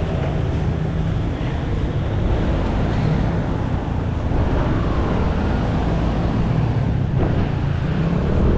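Street traffic: a steady engine hum of vehicles, with wind buffeting the microphone.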